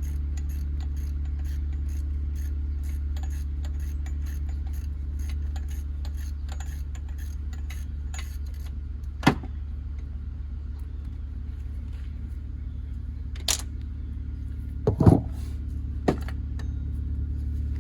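Metal hand tools and bolts clinking during water pump removal on a 3.8L V6. A run of faint light clicks comes over the first half, then a few sharper metallic clinks in the second half. A steady low hum runs underneath.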